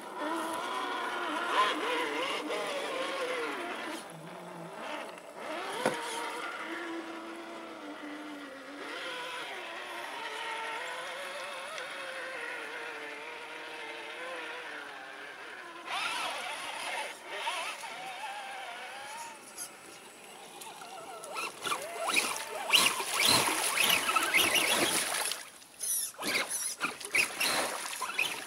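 Electric motor and gear whine of a scale RC crawler truck, wavering up and down in pitch with the throttle as it drives through muddy water. In the last few seconds, louder choppy splashing as a truck churns through the puddle.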